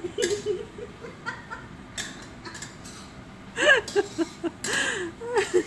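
A woman laughing in short bursts, loudest a little past halfway, with a few light clicks of a metal spatula against a wok.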